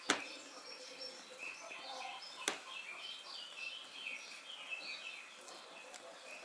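A fork stirring a thin pizza dough batter in a ceramic bowl, squeaking as it scrapes the sides. It clinks sharply against the bowl twice, just after the start and about two and a half seconds in.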